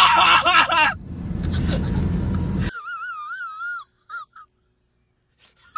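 Excited laughing and shouting over the low rumble of road noise inside a moving car. Just before the middle this cuts off suddenly, replaced by a high, wavering wail-like tone for about a second, then short blips and silence.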